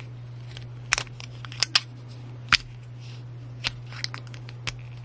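Irregular sharp plastic clicks and taps as an 18650 lithium-ion cell is handled and pushed into a black plastic single-cell holder against its spring contact, over a steady low hum.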